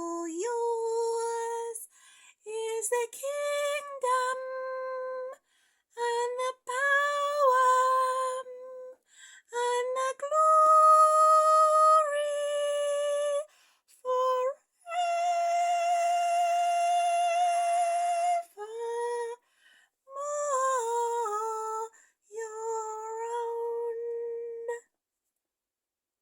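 A woman humming a slow tune alone, in short phrases of held notes with brief silences between them. The longest note is held for about three and a half seconds in the second half.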